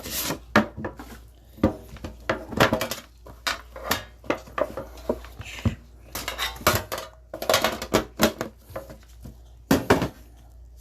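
Irregular clicking and clattering as a trading-card box is opened and its packaging and sealed cards are handled, in several clusters of sharp clacks.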